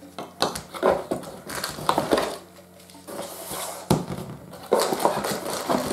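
Handling noise: coiled wiring harnesses being lifted out of a cardboard box and set down on a table, a string of rustles and light knocks.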